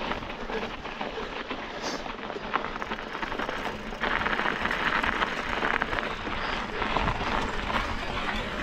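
Specialized Fuse Comp 29 mountain bike riding a frozen sand trail: steady tyre noise with a scatter of small rattles from the bike. The rushing gets louder about halfway through.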